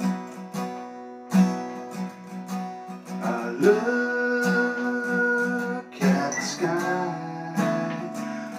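Steel-string acoustic guitar strummed in slow, spaced chords in a blues style. About three and a half seconds in, a man's singing voice comes in over it and holds a long note before moving on.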